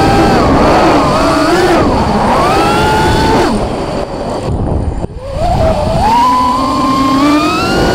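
Five-inch FPV racing quad's Emax 2205 Red Bottom brushless motors whining on HQ 5-inch props, the pitch rising and falling with the throttle. The whine drops away about three and a half seconds in as the throttle is cut, then climbs steadily again from about six seconds.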